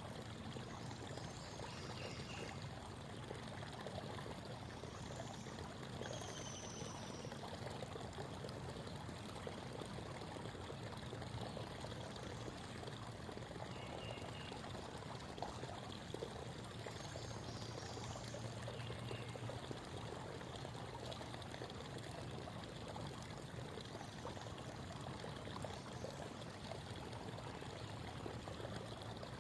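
Shallow creek babbling and trickling steadily over stones, with a few faint, short, high bird calls now and then.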